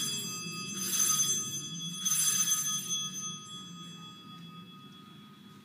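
Altar bells (sanctus bells) shaken three times, about a second apart, their ringing fading away toward the end: the bells rung at the elevation of the consecrated host during Mass.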